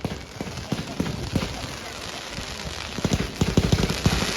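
Fireworks crackling: a scattered run of sharp pops that thickens into a rapid crackle near the end.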